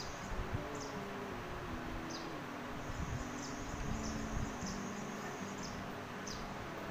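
Short high chirps repeating irregularly, about one or two a second, over a steady background hiss and a low hum.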